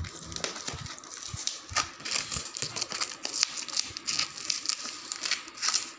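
Clear plastic wrapping and packing tape on a cardboard parcel crinkling and tearing as hands pull them off, in irregular crackles and rustles.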